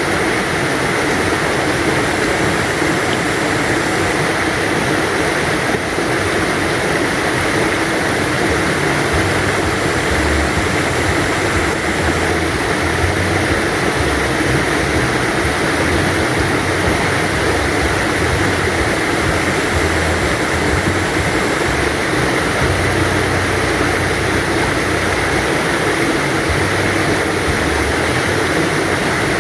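River stream flowing steadily, a continuous rushing and babbling of water over stones.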